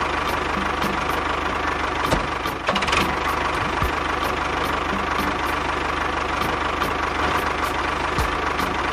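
Tractor engine running steadily with a fast, even chugging pulse.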